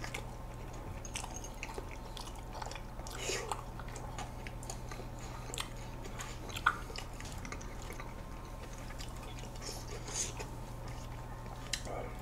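Ice cream cake being eaten with metal spoons: scattered soft mouth and chewing sounds and light clicks of spoons, the sharpest click a little past halfway, over a steady low hum.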